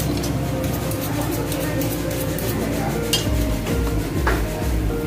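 Butcher's steel knife clinking and scraping against metal and a wooden chopping block, a few sharp clicks, over steady background music whose low beat comes in about three seconds in.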